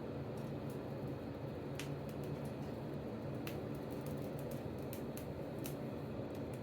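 A blacksmith's forge running with a steady low hum and scattered sharp crackling clicks; no hammer blows.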